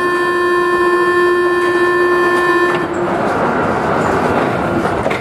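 A metro train horn gives one steady tone for nearly three seconds and then cuts off, over the steady running noise of an MP05 rubber-tyred metro train in a tunnel.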